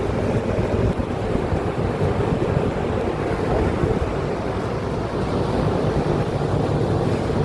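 Inverter air-conditioner outdoor unit running steadily after its PCB board was replaced, with a whooshing fan and a low hum, a sign that it is back to normal operation.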